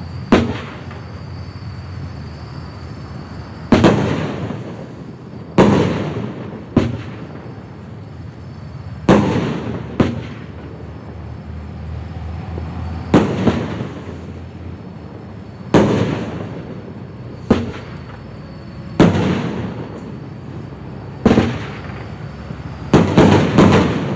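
Black Cat Tiger Tails firework going off: a series of about fifteen sharp bangs, each trailing off over a second or so, coming every one to four seconds, then a quick flurry of four shots near the end.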